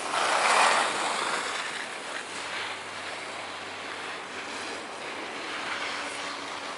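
Skis carving over packed snow with a steady scraping hiss, loudest in a swell about half a second in.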